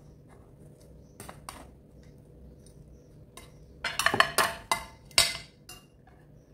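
Metal spatula scraping under a pizza on a baking pan and clattering against the pan and a glass platter as the pizza is slid across. A couple of light knocks come a little after one second; a quick run of loud clinks and scrapes follows from about four to five seconds in.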